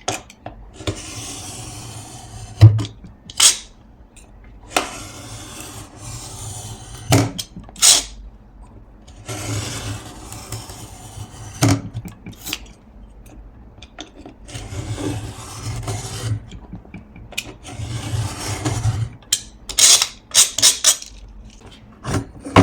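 A sharp blade drawn slowly through the edge of a thick stack of paper pages, in about five scraping passes, with sharp taps and knocks between them.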